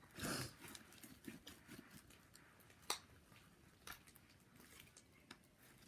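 Faint, scattered squelches and small clicks of sticky fluffy slime being mixed and kneaded by hand, with one sharper click about three seconds in.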